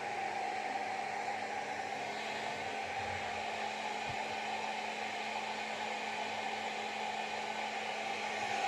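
Hand-held hair dryer running steadily: a constant rush of blown air over a low motor hum.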